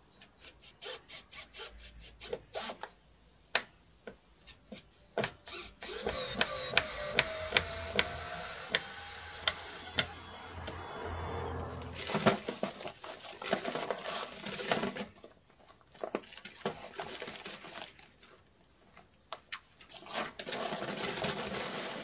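Irregular knocks, clicks and footfalls of someone moving about in the old brick chimney and the floor below it, with a scraping noise lasting several seconds in the middle that carries a slowly rising tone.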